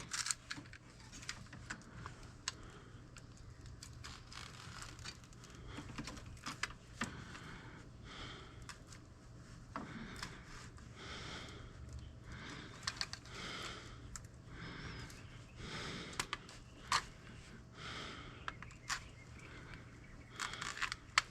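Razor knife slitting and scraping the insulation off scrap wire: quiet, irregular scrapes and small clicks, with the insulation tearing now and then.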